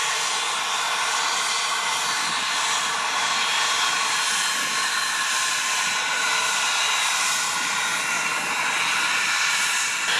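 Cessna Citation 560XL's twin Pratt & Whitney Canada PW545 turbofan engines running steadily: a constant jet whine of several high tones over a broad hiss.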